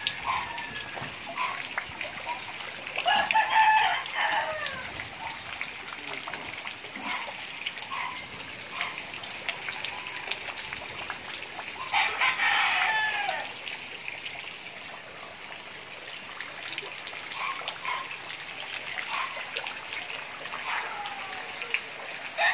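A rooster crowing twice, once a few seconds in and again about halfway through, each crow about a second and a half long, with a few short fainter calls between, over a steady wash of water noise.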